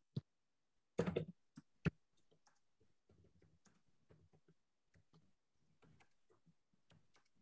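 Typing on a computer keyboard: faint, irregular keystroke clicks, with a few louder clicks in the first two seconds.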